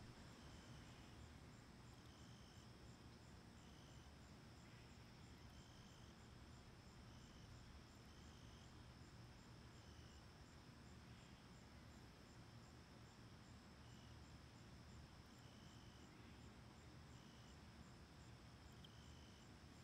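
Faint insects chirping: a steady high trill with short chirps recurring every second or two, over a low background rumble.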